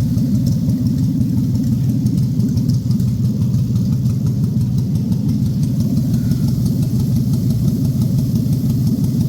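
Toyota 1GZ-FE five-litre V12 engine running steadily at a constant speed, with no revving.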